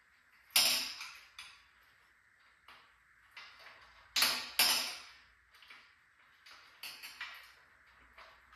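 Metal parts knocking and clinking against each other as a burred part is worked loose during disassembly of a metal hive lift. A sharp knock comes about half a second in, two more close together just after four seconds, a few near seven seconds, and lighter clinks fall between.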